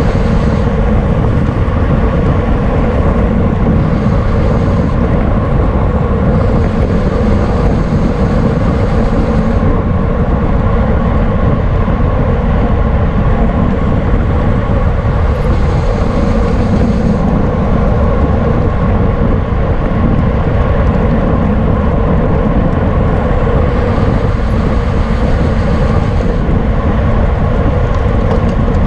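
Wind rushing over the microphone of a camera on a racing bicycle at speed, steady and loud, with a brighter hiss that comes and goes every few seconds.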